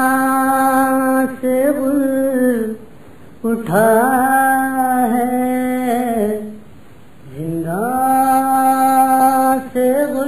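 A solo male voice reciting an Urdu noha (Shia lament) in three long, drawn-out phrases with held notes that fall at their ends. There are short pauses between the phrases and no instruments.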